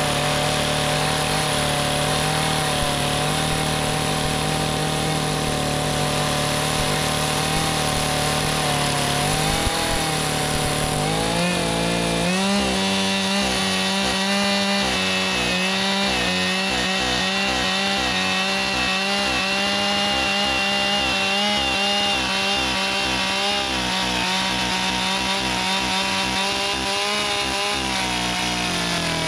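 Stihl two-stroke chainsaw running and sawing into the end of a squared log. The engine note steps up in pitch about twelve seconds in, holds there, and drops back just before the end.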